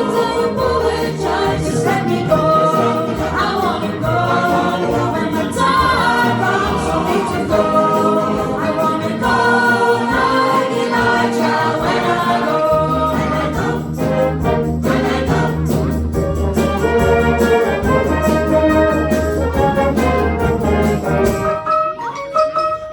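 A choir singing a gospel song with instrumental backing; a steady low bass line enters about halfway through.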